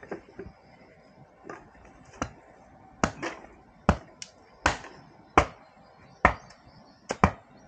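Machete blade chopping and splitting bamboo: about a dozen sharp, irregularly spaced strikes.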